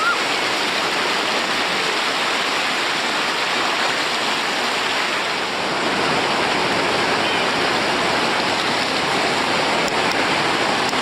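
Whitewater river rapids rushing in a steady hiss of churning water.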